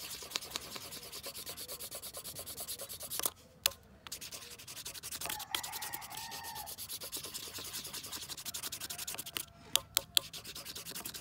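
A pointed metal tool scratching hard and fast across a plastic sheep/goat ear tag lying on a stone floor, in a scratch test of the tag's laser-engraved number. The scraping comes in quick, rapid strokes, with short pauses a little over three seconds in and about nine seconds in. Near the end come a couple of sharp taps.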